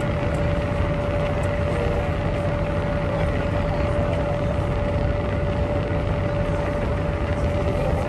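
Cruise boat under way: a steady engine drone with a constant hum running through it, unchanging.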